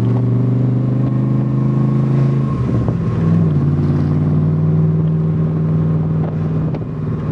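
Ford 347 cubic-inch stroker V8 of a Shelby Cobra roadster running under way, heard from the open cockpit. The engine note is steady, breaks up briefly about two and a half seconds in, then settles at a slightly higher steady pitch.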